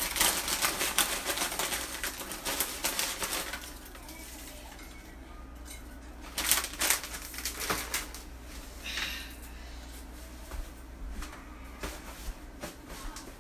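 Plastic potato chip bag crinkling as a hand pulls chips out of it onto a plate. There is a dense crackle for the first few seconds, then a quieter stretch, then another short spell of crinkling about six and a half seconds in.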